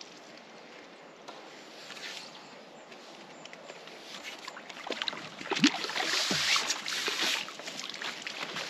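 A hooked fish splashing at the surface and water sloshing through a landing net as the fish is netted and lifted out. The splashing starts about five seconds in and is loudest around six to seven seconds, full of small sharp splashes and drips.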